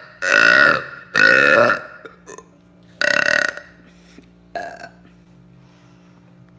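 A young woman burping: three loud, drawn-out burps in quick succession, then a shorter, fainter one.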